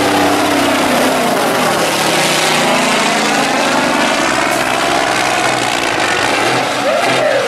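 Diesel semi-truck engine running hard under heavy load as it drags a weight-transfer pulling sled, its pitch rising and falling.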